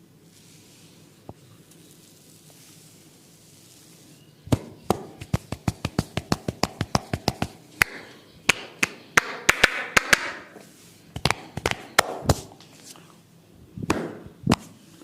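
A quick run of sharp taps, about four a second, starting about four seconds in, then scattered taps with short stretches of rubbing, from a barber's hands working a head massage.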